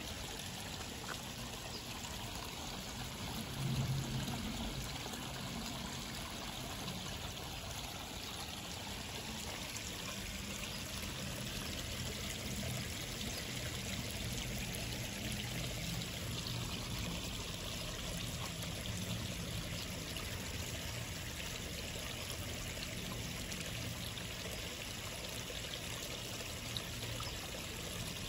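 Water pouring and trickling steadily into a small koi pond, an unbroken splashing flow, with a brief low rumble about four seconds in.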